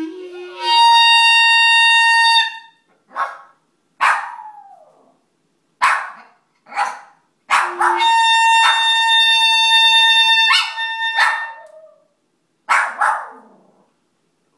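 Clarinet playing two long held notes at the same pitch while a dog howls along under the second, and short barks and yelps fill the gaps between the notes.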